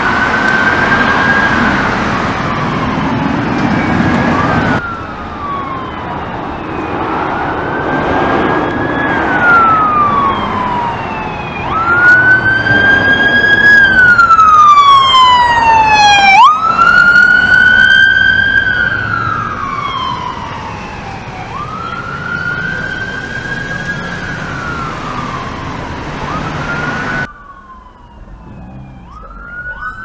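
Electronic emergency-vehicle sirens on the wail setting, each cycle climbing and then sliding down over about four to five seconds, heard from more than one vehicle in turn. The loudest stretch is from a police SUV passing close by, about halfway through, and the sound changes abruptly twice where one recording gives way to another.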